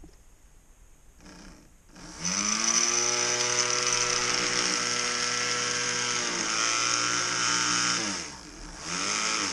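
Small brushed DC electric motor with a plastic LEGO gear on its shaft starting up with a short burst, then spinning up and running at speed with a steady whine. Near the end it slows briefly, speeds up again and cuts off.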